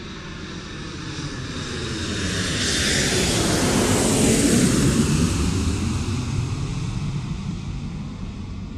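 Jet engines of a four-engined Boeing 747 airliner on final approach. The roar swells to a peak about four seconds in, then drops in pitch and fades as the plane passes and touches down.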